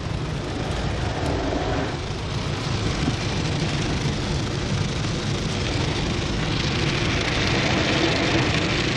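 Automatic car wash heard from inside the car: water spray and rotating brushes sweeping over the windows and body make a steady rushing, splashing noise. It grows hissier and a little louder about six and a half seconds in.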